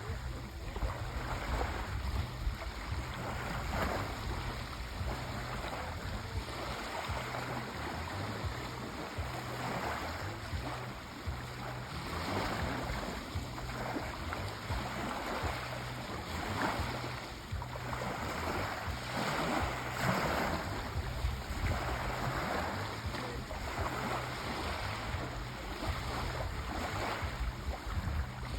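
Sea waves washing onto a shore, a steady rushing hiss that swells and ebbs every few seconds.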